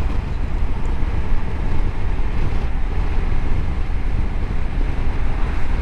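Steady wind rushing over the microphone of a moving Honda Africa Twin 1100 motorcycle, with a low, even rumble of engine and road noise beneath it.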